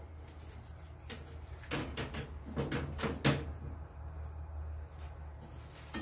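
Plastic cling film crinkling and rustling as it is pressed down over brigadeiro dough in a pan. A run of sharp crackles and light knocks comes about two to three seconds in, the loudest near the middle.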